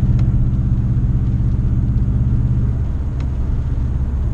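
Inside the cabin of a 2013 Subaru WRX cruising at about 50 mph at 2,000 rpm on its stock exhaust: the turbocharged flat-four's steady low hum under road and tyre noise, with no drone. The engine note eases off slightly a little under three seconds in.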